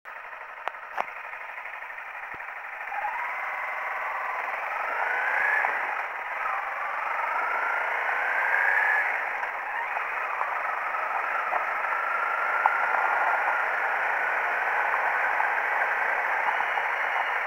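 Honda CRF 250L's single-cylinder four-stroke engine pulling away and accelerating, its pitch rising twice with a drop between, as it shifts up, then running at a steady cruise on a dirt track. The sound is thin and narrow, as from a low-quality camera microphone, with steady wind and road noise over it and two sharp clicks about a second in.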